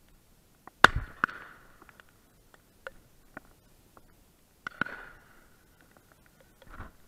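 Shotgun shots: a sharp report about a second in with its echo trailing away, a second report near five seconds, and a fainter one near the end. Faint scattered ticks of rain on the camera in between.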